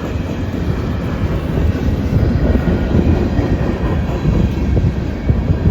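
Norfolk Southern manifest freight train's cars rolling past, a loud steady rumble of wheels on rail with a few sharp knocks near the end, heard from inside a car.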